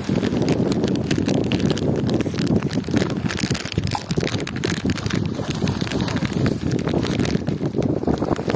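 Wind buffeting the microphone: a steady, rumbling noise that rises and falls, with scattered crackles.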